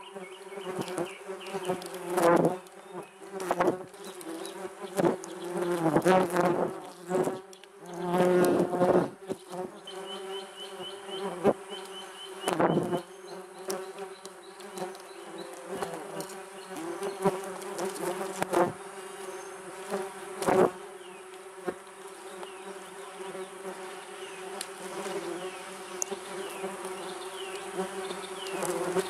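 Yellow jackets buzzing in flight around the entrance of their ground nest. The steady wing hum swells loudly again and again as individual wasps pass close, most often in the first twenty seconds, then settles to a steadier, fainter buzz.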